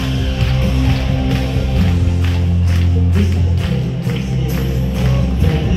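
Upbeat music with a steady beat and heavy bass, played over a stage sound system.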